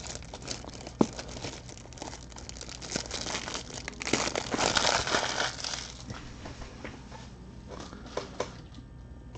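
Crinkly packaging being handled and crumpled, louder for a couple of seconds around the middle, with a few light clicks.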